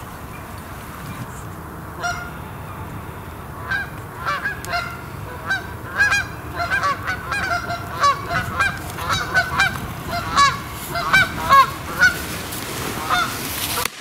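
A flock of geese honking as they fly low overhead: many short overlapping honks that start about two seconds in and grow thicker towards the end.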